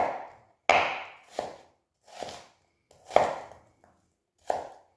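Chef's knife chopping a red onion coarsely on a wooden cutting board: about six separate cuts, each a sharp crunch into the board, a little under a second apart.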